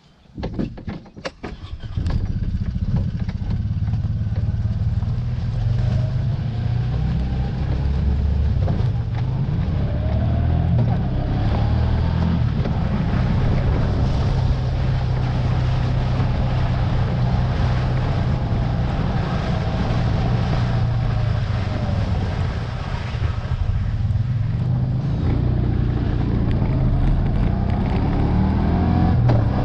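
A motor engine starts up about two seconds in, after a few knocks, and then runs steadily at a low pitch with a whine that rises and falls. It dips briefly about two-thirds of the way through.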